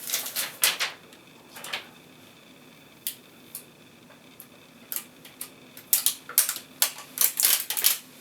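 Protective plastic film being peeled off a graphics card: crinkly rustles and small crackles, bunched in the first second and again over the last couple of seconds, with a few single clicks between.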